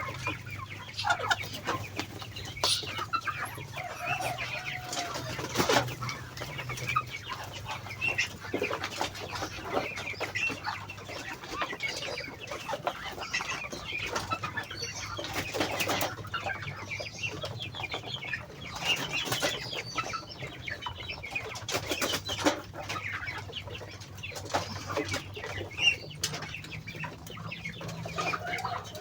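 Flock of Muscovy ducks at feeding time, with frequent short clicks and scattered short calls over a low steady hum.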